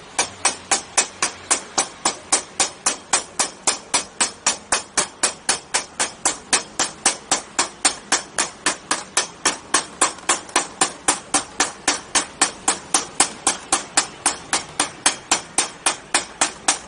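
Hand hammer striking metal in a fast, steady rhythm of about three blows a second.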